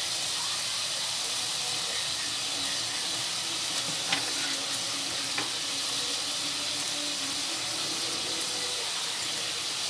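Shallot pan sauce sizzling steadily as it reduces in a skillet over a gas burner, with a couple of faint pops about four and five and a half seconds in.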